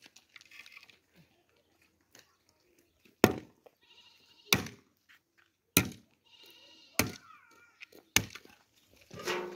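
A shovel struck hard five times against a pile of straw and earth, sharp blows about a second and a quarter apart, starting about three seconds in. High, wavering calls sound between the blows.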